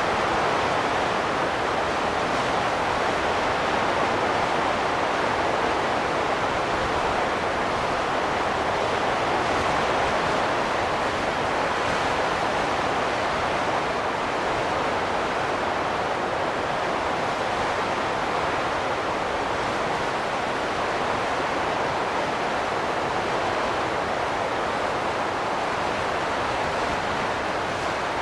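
Wind gusting: a steady rushing noise that swells and eases slowly.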